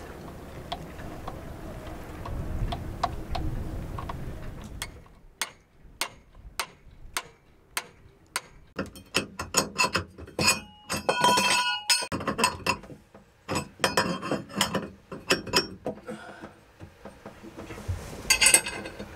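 Low wind rumble with light metallic ticks for the first few seconds, then a long run of sharp metal clicks and ringing clinks as a steel spanner works the nut on a bowsprit mounting bolt.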